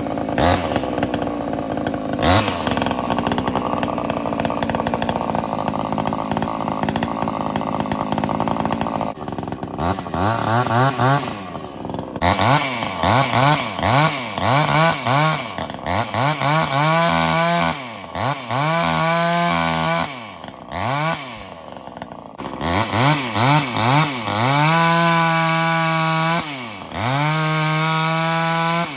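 Homelite XL-76 chainsaw with a pipe-modded muffler, running a 24-inch bar and skip chain. For about the first nine seconds it cuts steadily under load through a dead tree. After that it is revved up and down over and over, with stretches held at high revs near the end.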